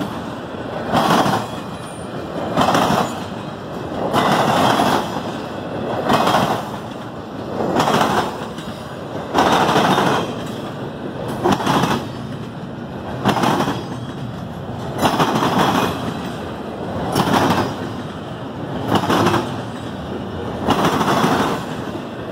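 Intermodal freight train passing at close range, its trailer and double-stack container cars rolling by with a steady rumble and clatter of wheels on rail that swells about every two seconds.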